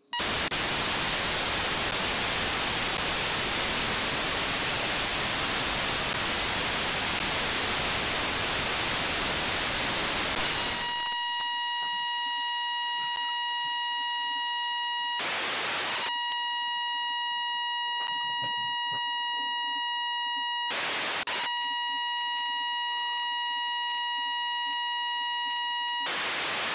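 FM radio receiver audio of the AO-92 (Fox-1D) satellite downlink. Loud hiss of open squelch with no signal gives way, about eleven seconds in, to a steady high-pitched tone with overtones as the satellite's signal is received. Three brief bursts of static break in later, where the signal fades.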